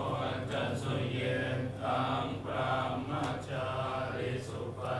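Buddhist monks chanting, a steady low drone of voices.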